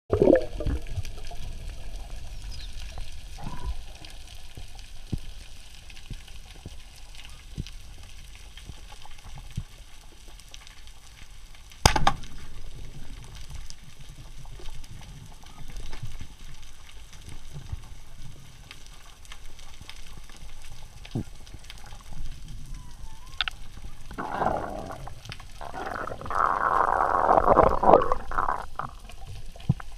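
Underwater sound through a camera housing: a low, muffled water rumble with scattered faint clicks, and one sharp click about twelve seconds in. Near the end come two louder bursts of rushing, gurgling water.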